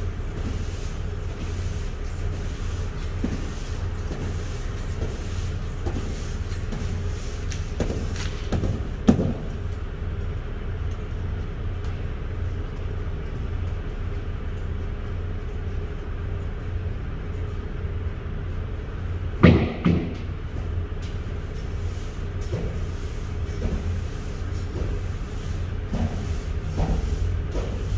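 A broom working the grooved aluminum floor of an empty semi-trailer, with the odd knock against the metal; the loudest is a quick double knock about two-thirds of the way through, and another comes about a third in. A steady low rumble runs underneath.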